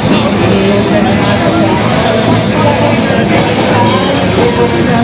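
Loud rock music with singing and electric guitar, playing steadily throughout.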